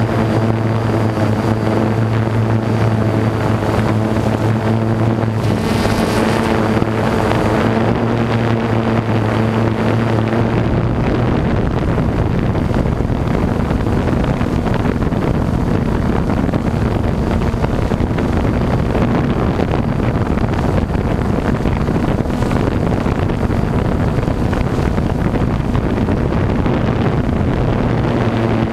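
DJI Phantom 2 quadcopter's motors and propellers buzzing steadily in flight, heard from on board, with wind rushing over the microphone. The hum is even through the first ten seconds or so, then rougher, and a short gust of hiss comes about six seconds in.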